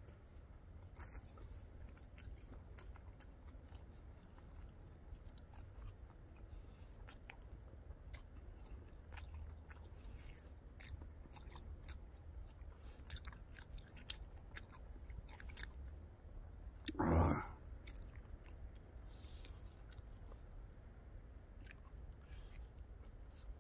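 A person chewing and biting food close to the microphone, with many small crunching clicks. About seventeen seconds in there is one brief, much louder noise.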